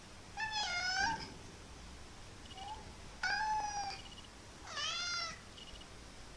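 Kitten meowing three times, high-pitched calls each lasting about half a second to a second, the last one bending down and back up in pitch.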